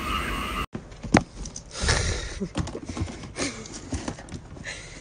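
A cat scrabbling about in a clear plastic storage tub: a run of irregular knocks and scuffs against the plastic, with one sharp knock about a second in. Before that, for a moment, comes a pulsing chorus of frog-like calls.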